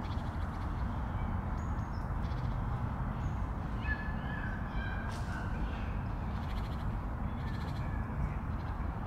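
Several short bird calls, starting about four seconds in and recurring near the end, over a steady low rumble.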